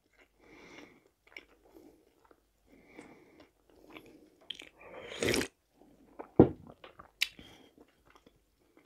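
Chewing a chicken shawarma wrap, close to the microphone, with small wet mouth sounds. About five seconds in comes a loud sip of tea from a glass cup, followed by a sharp knock, the loudest sound, as the cup goes back down on the table.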